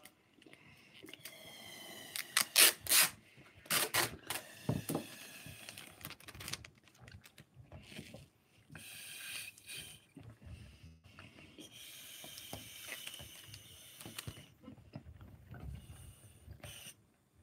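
A rubber balloon and sellotape being handled close to the microphone. A few squeaky rising tones near the start, loud sharp clicks and crackles a few seconds in, then stretches of breathy hissing and rustling.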